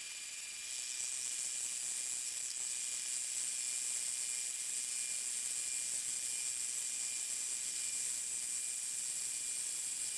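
Milling machine taking a cut along the rough hacksaw-cut edge of a metal plate to make it straight: a steady high hiss with a thin whine, a little louder from about a second in.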